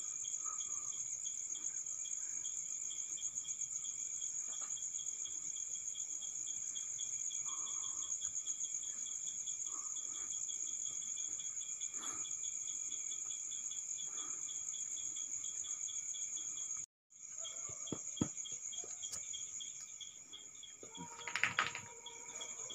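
Night chorus of crickets: a steady high-pitched trill, with a second, lower cricket chirping in a rapid even pulse. The sound drops out for a moment about two-thirds of the way through. Near the end a brief, louder sound with a few steady tones rises over the chorus.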